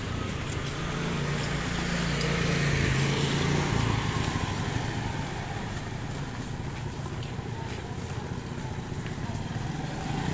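Street traffic: a motor vehicle engine, most likely a motor scooter, runs with a steady low hum. It grows louder and passes about three seconds in, and traffic noise carries on after.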